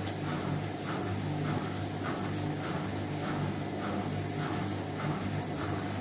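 Indesit front-loading washing machine tumbling a load of towels: a steady low motor hum with a swish roughly every 0.6 seconds as the drum turns.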